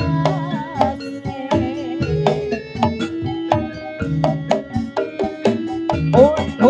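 Javanese jaranan gamelan music: hand drums beat a steady rhythm over ringing gongs and metal keyed instruments, with a wavering melody line above and a rising swoop near the end.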